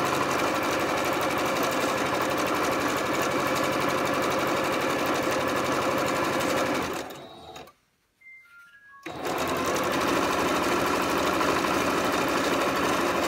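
Electric sewing machine stitching a long straight seam through two layered fabric strips at a steady speed. It slows and stops about seven seconds in, pauses for about a second and a half, then starts up again and runs on.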